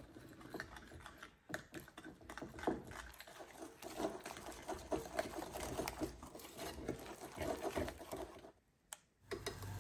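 Small metal wire whisk beating thick batter in a bowl: fast, uneven clicking and scraping of the wires against the bowl's sides. It stops shortly before the end.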